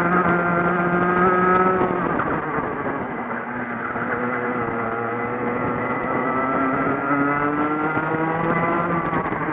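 Onboard racing kart engine at race pace: the note is held high at first, falls away about two seconds in as the driver lifts off for a corner, then climbs steadily as the kart accelerates out. Other karts' engines sound close by.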